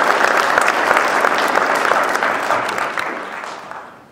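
Audience applauding, steady at first and dying away over the last second.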